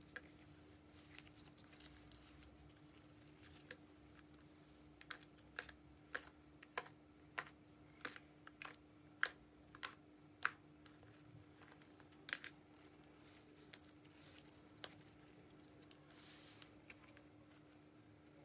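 A run of short, sharp taps, about two a second for some five seconds, then a few scattered ones, over a faint steady hum.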